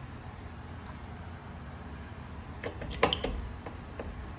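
AA batteries being pressed into a Hornbill digital door lock's battery compartment: a few short clicks about three seconds in, the loudest just after three seconds, as the cells are pushed into place.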